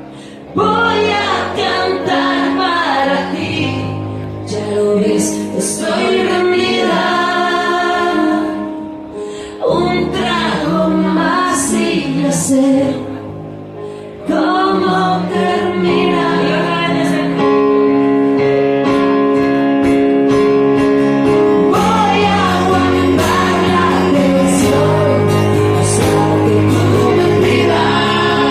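Live band music with singing. The song eases off briefly a few times, then builds to a fuller, steady sound for the last third.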